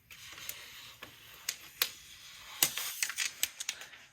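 Protective plastic film being peeled off the back of an iMac: a soft crackling rustle, with several sharp clicks and ticks scattered through.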